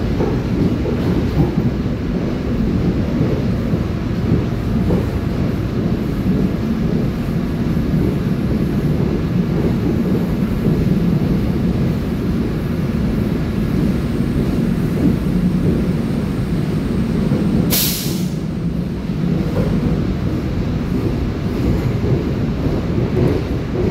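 Seoul Subway Line 4 electric train heard from inside the car while running: a steady rumble of wheels on rails. About 18 seconds in, a short, sharp hiss.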